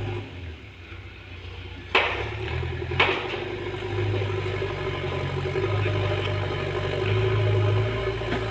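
Backhoe loader's diesel engine running, quieter for about the first two seconds. Two sharp knocks come about a second apart, then the engine runs louder with its pitch stepping up and down.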